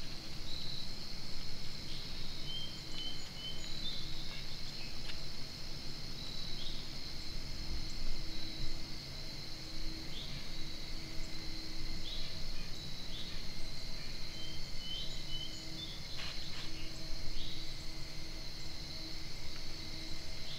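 Insect chorus, crickets trilling as a steady high-pitched drone, with a few brief chirps over low background noise.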